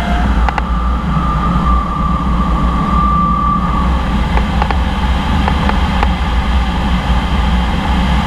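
Loud, steady rush and rumble of airflow around a glider's cockpit during aerobatic flight. About a second in, a steady high electronic beep holds for nearly three seconds, and a few light clicks come through.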